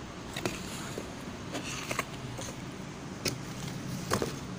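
Handling noise from a plastic toy doll house: scattered light clicks and taps, about six of them, over a steady low hum.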